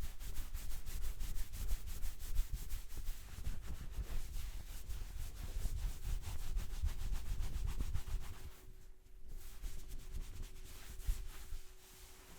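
Barber's hands working quickly through a person's hair in a hair-cracking head massage: a fast, even run of dry rubbing strokes, many a second. It breaks off briefly about nine seconds in, then resumes.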